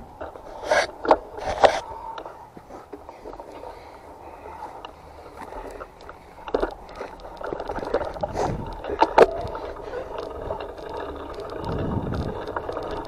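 Bicycle ridden over a bumpy dirt trail: tyres rolling on the dirt with a steady rumble, and the bike rattling and knocking sharply over bumps, three quick knocks in the first two seconds and several more later.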